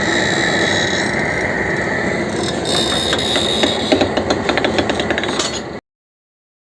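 Woodworking machine running: a dense mechanical clatter with fast rapid clicking, which cuts off abruptly near the end into dead silence.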